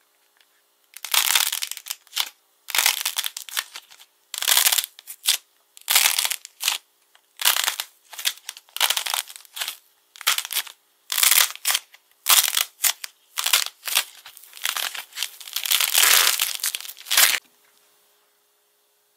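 Hardened glossy coating on a soft clay lump cracking and crunching as hands squeeze and bend it, in irregular bursts of crisp crackling. It starts about a second in and stops a couple of seconds before the end.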